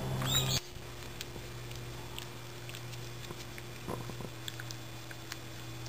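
A dog licking and mouthing a person's fingers: faint wet clicks and smacks over a steady low hum.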